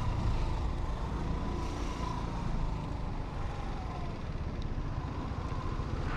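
Motor scooter engine running at low speed in slow traffic, with the rumble of idling cars and trucks close by.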